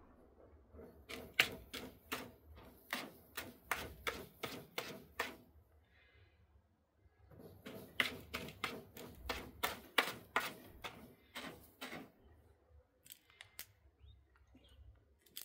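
British Longhair kitten digging in granular cat litter with its paws: quick scraping strokes, about three a second, in two long runs with a pause about six seconds in, then a few scattered scrapes near the end.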